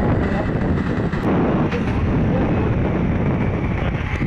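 Steady rumble of a moving road vehicle, with wind buffeting the microphone.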